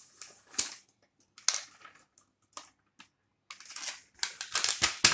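Foil packet crinkling and rustling in irregular spurts as powdered gulab jamun mix is shaken out of it into a steel tray, with a couple of soft knocks, one about half a second in and one near the end.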